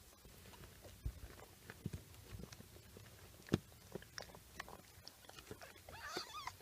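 Mother cat chewing and eating the afterbirth (placenta) after giving birth: irregular wet crunching and clicking bites, the loudest about halfway through. A brief high-pitched mew about six seconds in.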